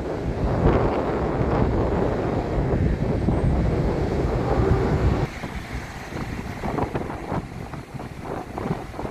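Strong storm wind buffeting the microphone over the sea's surf, a loud low rumble. A little past halfway the wind noise drops away suddenly, leaving the waves washing and breaking more clearly.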